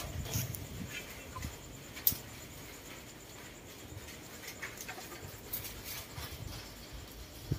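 Faint rustling of leaves and twigs in a tree, with scattered light clicks, one sharper about two seconds in, over an irregular low rumble.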